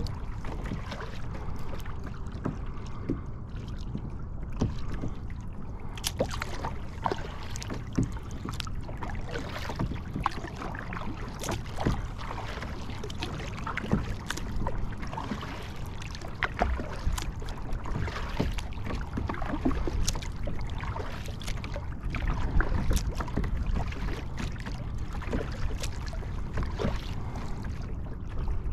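Lake water splashing and lapping against a fishing kayak's hull, with many small irregular splashes and knocks over a steady low rumble.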